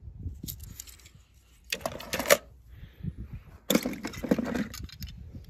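Hollow plastic ball-pit balls and small toy cars clattering and rattling as a hand rummages through them, in two bursts about two and four seconds in.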